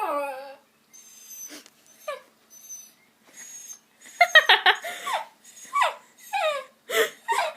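Dog whining in a series of short, high calls that slide down in pitch, coming thicker and faster in the second half.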